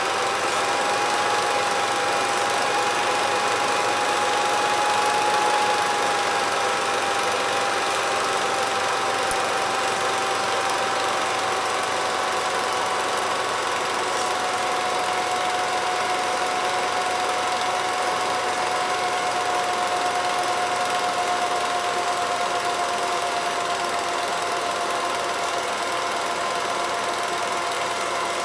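Film projector running: a steady motor whine that sinks slowly in pitch, over a continuous mechanical rattle and hiss.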